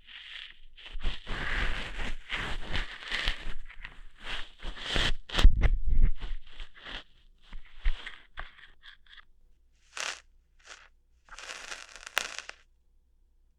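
Close-miked ASMR ear-hair plucking sounds: crackling, scratching and tearing noises right at the microphone's ear. A dense run of crackles fills the first seven seconds, then comes a handful of short separate crackles and a longer scratchy rustle about twelve seconds in.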